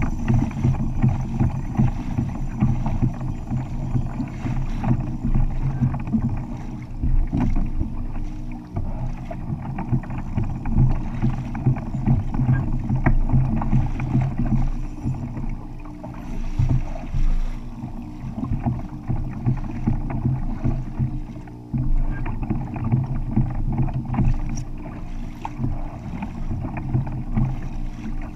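Continuous water and wind noise aboard a kayak at sea: waves slapping against the hull, with a low wind rumble on the microphone.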